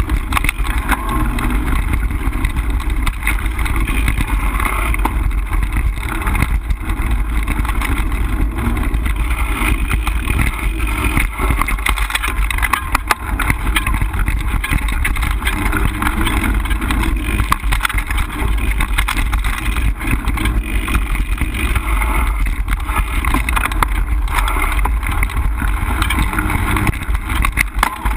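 Mountain bike ridden fast over a dirt woodland trail, heard through a camera mounted on its handlebars: steady wind buffeting and low rumble on the microphone, with many small rattles and knocks as the bike runs over the ground.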